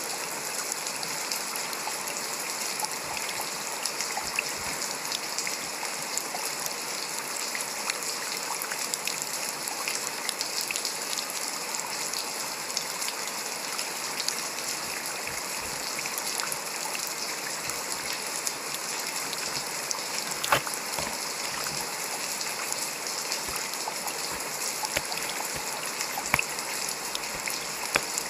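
Steady rain falling: an even hiss with many small drops tapping and an occasional sharper drip, the sharpest about twenty seconds in.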